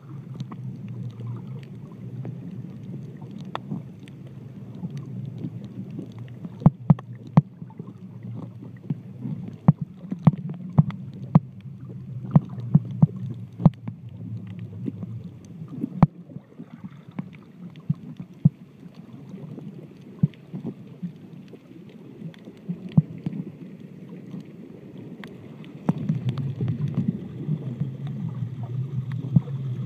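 Water heard by a submerged microphone while snorkeling: a muffled low rumble with scattered sharp clicks. It gets louder near the end.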